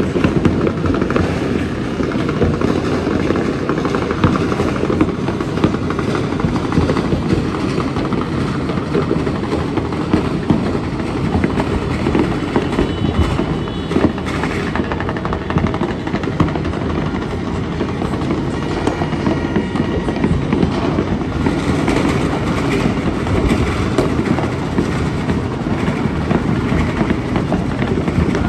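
Dense, unbroken crackle and rumble of many fireworks and firecrackers going off at once, with no single bang standing out above the rest.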